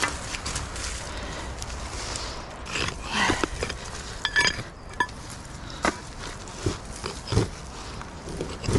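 Gloved hands shifting and lifting a flat stone out of a shallow hole in leaf litter: irregular scraping and rustling of soil and dry leaves, with a few short knocks and clinks.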